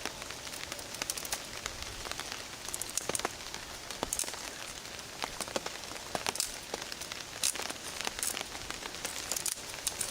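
Steady rain falling on a tarp: an even hiss with many irregular sharp drop ticks.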